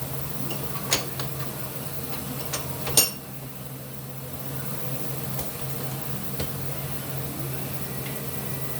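Small metal brake wheel-cylinder parts clinking as they are handled and fitted together: a sharp click about a second in and a louder ringing clink about three seconds in, over a steady low hum.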